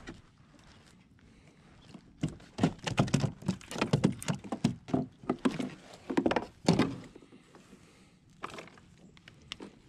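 A quick run of knocks and clatters on a plastic fishing kayak, like gear and the catch being handled aboard, starting about two seconds in and stopping about five seconds later.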